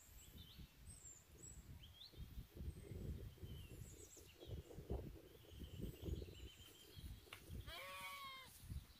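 A goat bleating once, a wavering call under a second long near the end, over scattered bird chirps and a low rumble of wind on the microphone.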